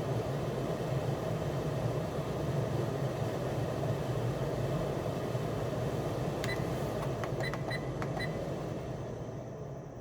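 Pet drying cabinet's blower fan running with a steady hum and rush of air. A quick run of short beeps and clicks, like control-panel button presses, comes in the second half, and the fan gets quieter near the end as it is turned down.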